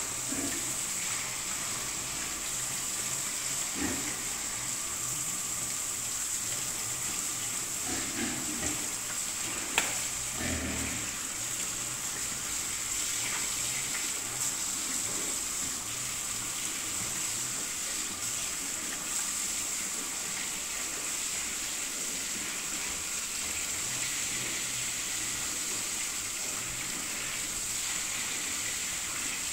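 Steady hiss of water spraying from a hose while pigs are washed, with a few short low pig grunts in the first dozen seconds and one sharp click about ten seconds in.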